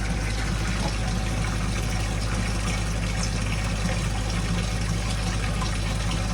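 Water from a hose pouring steadily into a washing machine tub as it fills, over a steady low hum.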